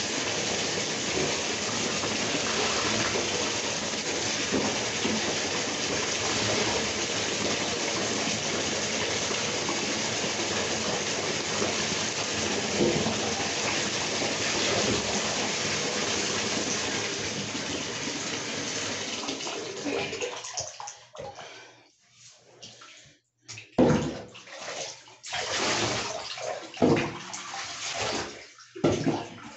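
Water running steadily from a bathtub tap into the tub while a dog is being wetted down. It shuts off about two-thirds of the way through, followed by a few short splashes of water.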